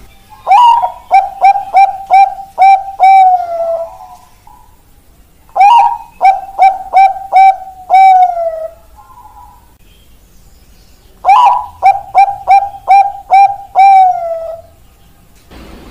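Bangkok-strain zebra dove (perkutut) singing its cooing song three times. Each phrase is a quick run of short, clear coos ending in a longer, falling final note.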